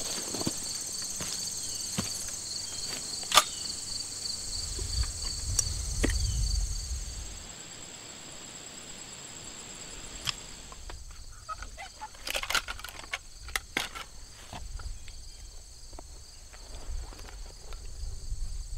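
Insects chirring steadily in high, pulsing bands, which fade about seven seconds in. Scattered light clicks and rustles come through the whole stretch, bunched together about twelve to fourteen seconds in.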